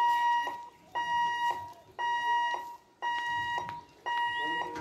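Railway level-crossing warning alarm sounding: a steady electronic beep repeating about once a second, each beep a little over half a second long.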